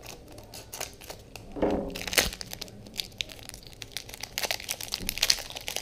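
Plastic packaging of card sleeves being handled and torn open, crinkling and crackling irregularly, with one sharper snap about two seconds in.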